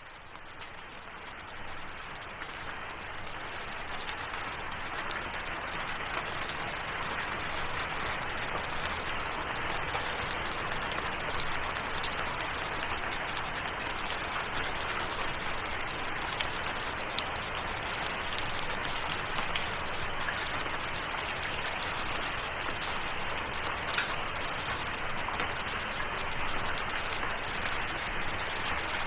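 Steady rain, with many separate drops ticking on a surface, fading in from silence over the first couple of seconds and then holding even.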